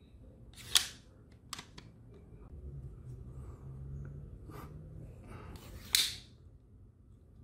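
Sharp plastic snaps and clicks from 3D-printed crossbow pistol parts being handled and fitted together: two loud snaps, one just under a second in and one near the end, with a few lighter clicks between.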